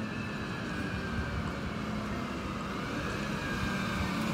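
Dennis Eagle Elite 6 bin lorry driving up and approaching, its diesel engine running steadily with a faint whine that shifts in pitch; it grows a little louder near the end as it comes close.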